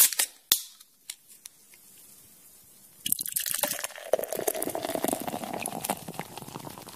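A few sharp clicks, then, about three seconds in, beer pouring and splashing into a glass with a crackling, fizzing hiss that slowly dies down.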